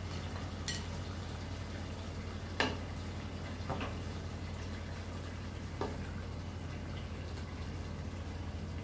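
Kitchen handling sounds: four or five light clicks and knocks spread over several seconds, over a steady low hum.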